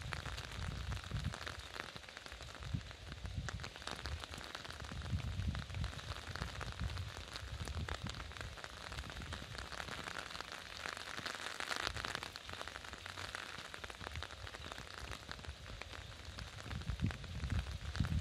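Steady rain hiss with a patter of drops and drips. Intermittent low rumbles come and go throughout.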